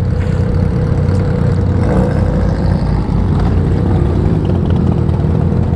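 Yamaha XSR900's inline-three engine idling steadily at a standstill, with other motorcycles idling around it.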